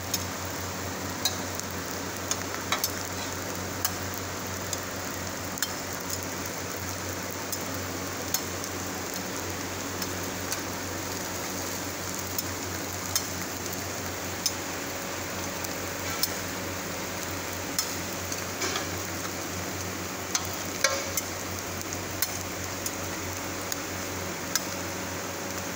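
Egg omelettes frying in oil on a flat steel griddle, a steady sizzle, with a metal spatula clicking and scraping against the plate every second or two.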